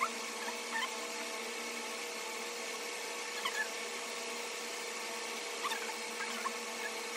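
A steady machine hum with a few short, high chirps over it, about a second in, midway and near the end.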